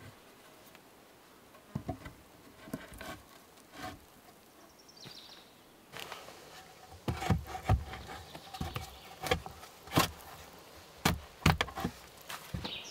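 Wooden knocks and clunks of logs being lifted and set onto a stacked log wall, a few at first and then more frequent and louder from about halfway. An insect buzzes nearby.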